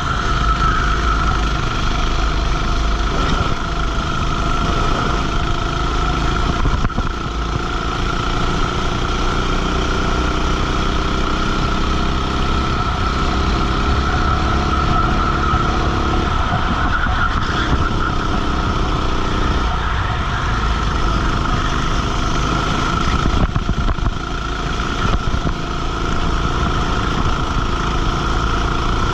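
Racing kart's engine running hard on track, its pitch rising and falling as it is throttled through corners and along straights, over steady wind and rushing noise on the onboard microphone.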